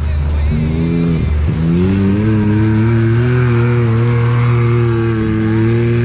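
Race side-by-side UTV engine accelerating past on a dirt track. The revs dip about a second in, then climb and hold high and steady.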